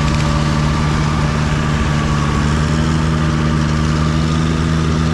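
An engine running steadily at a constant speed, its hum holding one even pitch with no revving.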